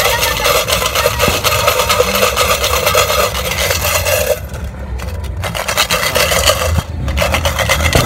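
Loud, rough rubbing and scraping noise that drops away briefly about four and a half seconds in and again near seven seconds, then returns.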